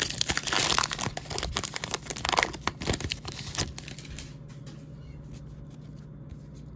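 A trading-card pack wrapper being torn open and crinkled, loud and crackly for about the first four seconds. It then drops to faint rustling and ticks as the cards are taken out and handled.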